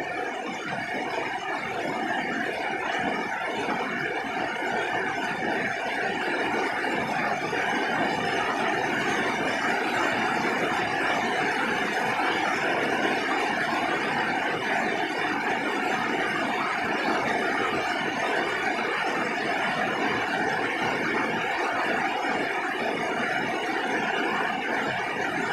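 Steady heavy rain falling on a roof, a dense even patter.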